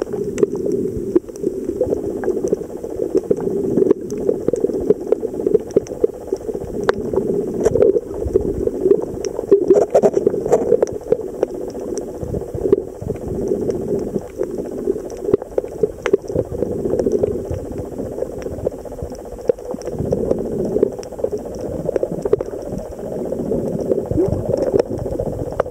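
Underwater sound picked up by a submerged camera: a muffled, continuous low water rush with irregular clicks and crackles scattered through it.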